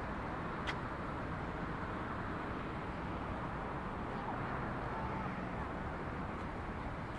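Steady hum of distant city traffic, with a light click about a second in.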